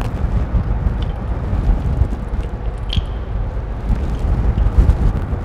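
Cables rubbing and clicking lightly against the plastic housing of a robot arm as they are pulled out by hand, over a low, uneven rumble.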